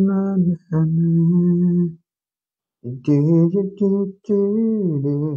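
A man's voice singing unaccompanied in slow, long held notes that slide from one pitch to the next, with a silent break of about a second near the middle.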